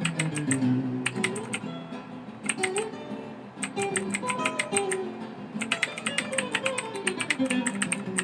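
Typing on a Rakk ILIS mechanical keyboard: fast keystroke clicks in quick runs with brief pauses, over acoustic guitar background music.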